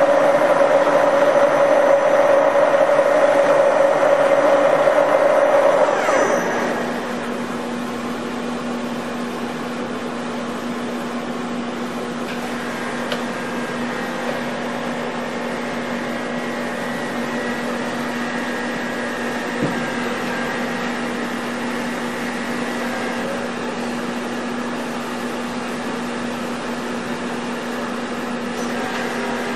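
CNC bed milling machine running with a steady mechanical whine. About six seconds in the louder, higher whine falls away and the sound quietens to a lower steady machine hum.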